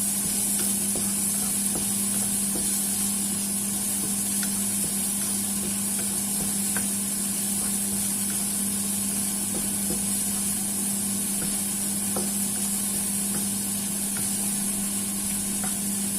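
Shrimp frying in a pan of spiced oil and sauce: a steady sizzling hiss over a steady low hum, with a few faint clicks of stirring.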